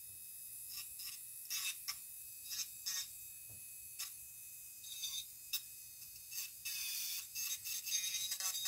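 Electric nail file with a refiner bit grinding on hardened acrylic in short, irregular back-and-forth passes, shaping a 3D seashell piece.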